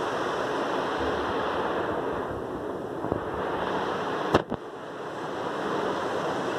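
Steady rushing background noise with no clear source. A single sharp click comes about four and a half seconds in, after which the noise briefly drops away and swells back.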